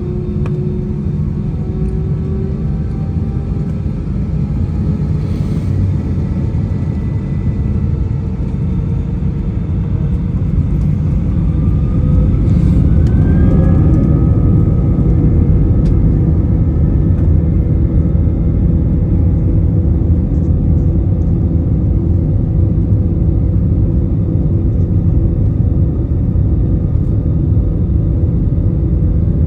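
Airbus A320 jet engines heard from inside the cabin: a steady low roar. About 11 to 14 seconds in, whining tones rise in pitch as the roar grows louder, the engines spooling up for takeoff. It then holds at a loud, even roar.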